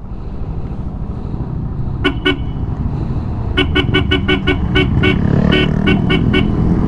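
A vehicle horn sounds two short toots about two seconds in, then a rapid string of a dozen or so short toots. Underneath is the steady engine and wind noise of a motorcycle on the move, growing louder.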